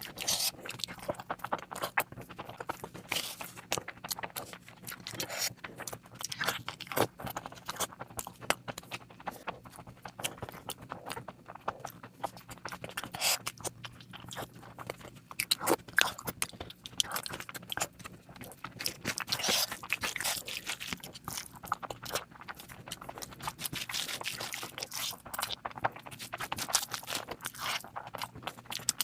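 Close-miked eating sounds: chewing with wet mouth smacks and many small sharp clicks, irregular and continuous, as someone eats mutton curry with rice.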